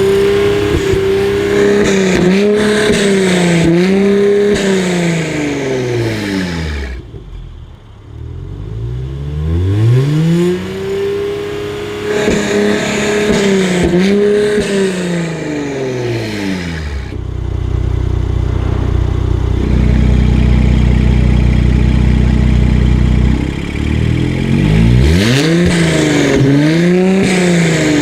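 Mercedes-AMG C450/C43's twin-turbo V6 through an ARMYTRIX cat-back exhaust, revved in repeated blips whose pitch rises and falls about once a second. Past the middle it holds a steady low drone for several seconds before the revving starts again.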